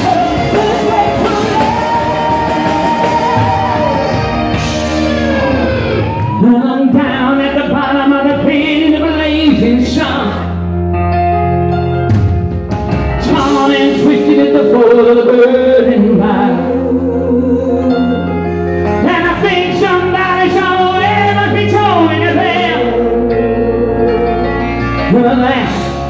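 Live rock band with a male lead singer singing. For the first six seconds the band plays full out; it then drops back to long held bass notes under the vocal line.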